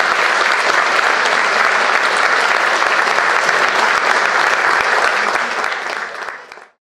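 A roomful of people applauding, a dense steady clatter of many hands clapping, which dies down and cuts off abruptly near the end.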